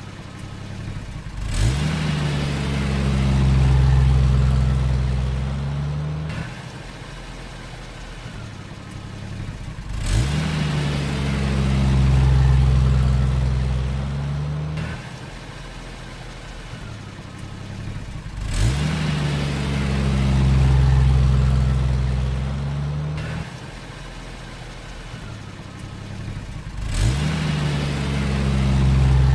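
Heavy engine revving up sharply, running steadily for a few seconds, then dropping away; the same cycle repeats about every eight and a half seconds, four times over.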